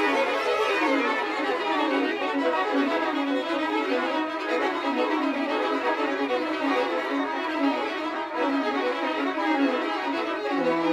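A string ensemble, mostly violins, plays a dense cloud of many quick, overlapping short notes. The players were recorded apart online and layered, so they are not quite in time with each other. Low notes come in near the end.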